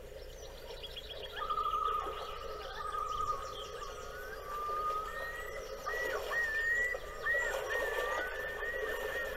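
Birds singing: fast trills and whistled notes that rise and fall, over a steady background hum.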